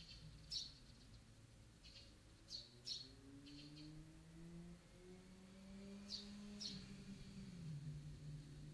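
Small birds chirping in short, separate calls, about eight in all, over a faint, steady low hum.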